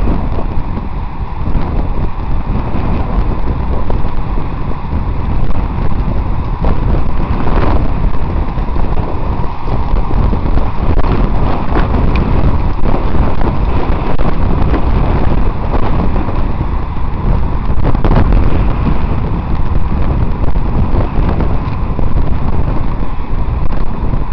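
Wind buffeting the microphone of a camera carried on a moving bicycle: a loud, steady rumble riding in a pack of cyclists.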